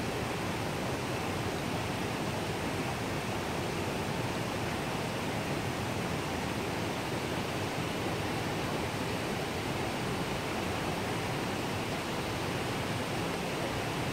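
Steady rushing, bubbling noise of aerated water in shallow concrete fish-farm tanks.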